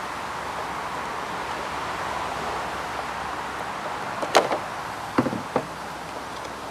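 A steady outdoor background hiss. About four seconds in there is a sharp click, then two duller knocks about half a second apart, as hand tools (tin snips and pliers) are handled and set down on a wooden tabletop.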